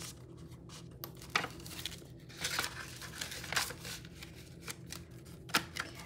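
Paper banknotes and laminated cash envelopes rustling and crinkling as they are handled in a ring binder, with a few sharp ticks and snaps.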